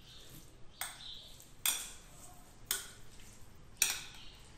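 A spoon knocking and scraping against a container as chicken filling is emptied out of it into a bowl: four short sharp taps about a second apart, the last the loudest.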